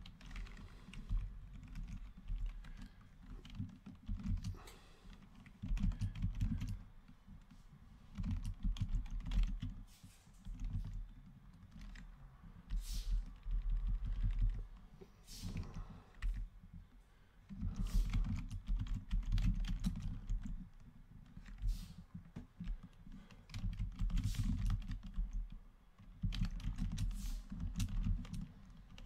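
Typing on a computer keyboard, in runs of keystrokes broken by short pauses.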